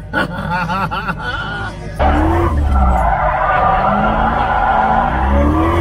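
Supercharged C6 Corvette's V8, heard from inside the cabin, revving up and down hard during a drift, with tyres squealing as the car slides. It comes in suddenly about two seconds in, after a short stretch of cabin voices.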